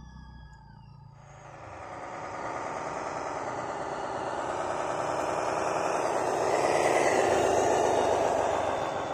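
Handmade radio-controlled model truck running, its motor and drivetrain setting in about a second in and growing louder to a peak near the end before easing off.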